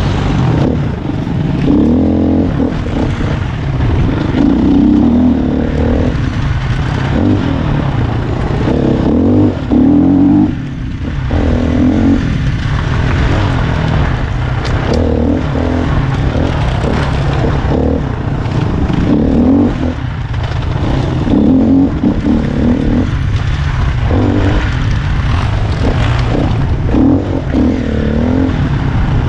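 Dirt bike engine running on a woodland trail, its revs rising and falling every second or two as the rider works the throttle.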